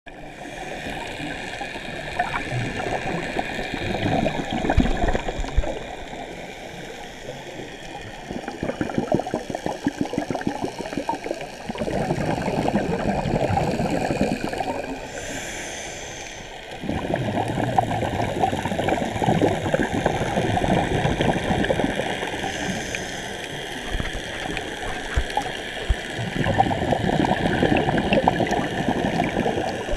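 Scuba diver's exhaled bubbles venting from the regulator underwater, bubbling and crackling in several bursts a few seconds long, one per breath, with quieter pauses between.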